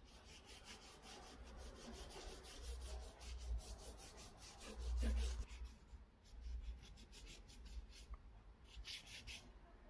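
Faint, rapid, repeated strokes of a paintbrush scrubbing watercolour across paper over wax-crayon writing, with a dull low bump about five seconds in.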